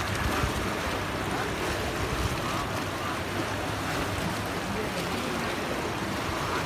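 Sea waves washing and splashing against the boulders of a rock breakwater, a steady rushing noise, with wind rumbling on the microphone.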